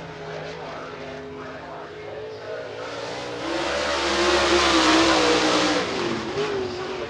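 Dirt late model race car's V8 engine running hard at speed, growing louder as the car passes close by about four seconds in, then falling in pitch and fading as it heads into the turn.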